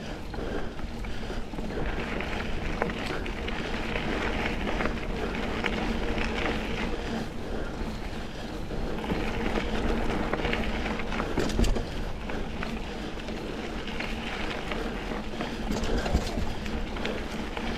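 Mountain bike rolling over dirt double-track: steady tire rumble and rushing noise, with a sharp jolt or knock about two-thirds of the way through.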